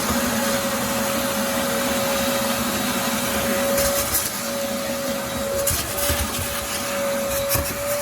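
Electric drill running a hole saw into a wooden deck plank, the motor holding a steady speed under load, with a few sharp clicks as the cutter bites.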